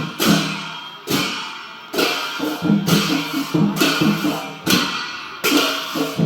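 Traditional Newar percussion accompanying a Lakhe dance: drum strokes under loud cymbal crashes about once a second, with quicker drum beats between them.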